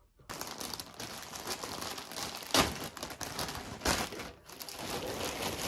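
Plastic courier bag being handled and pulled open by hand: continuous crinkling and rustling, with two sharper, louder crackles about two and a half and four seconds in.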